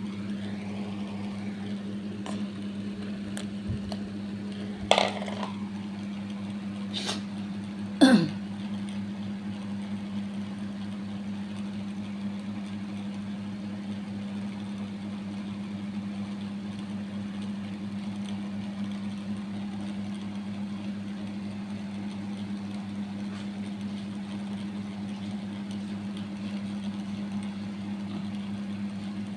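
A steady mechanical hum, with three short sharp sounds about five, seven and eight seconds in.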